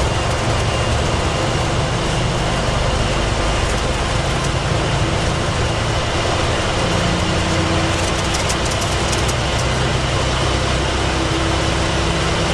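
Boeing 737-400's CFM56-3 turbofans at takeoff thrust during the takeoff roll, heard in the cockpit as a loud, steady rush with a low hum underneath.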